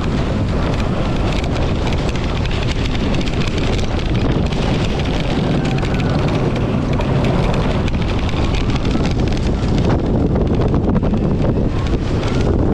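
Wind buffeting the microphone of a camera riding a Bolt roller coaster car as it runs along its track, over a steady low rumble, with a faint rising whine now and then from the powered car.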